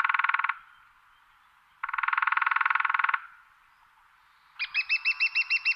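Two buzzy, trilled animal calls, each about a second long, with silence between them. Near the end comes a fast run of rising chirps, about five a second.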